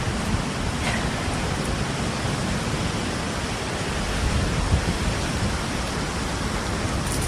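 Steady rain, a constant even hiss spread across low and high pitches.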